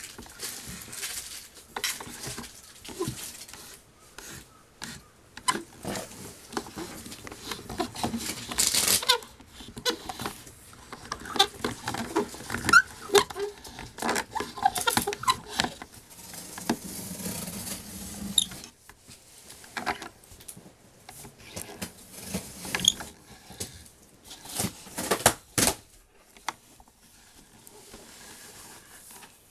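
Handling noise from cotton-gloved hands moving the jointed limbs of an antique Gans & Seyfarth bébé doll. Irregular small knocks and rubbing come throughout, with a few brief squeaks partway through.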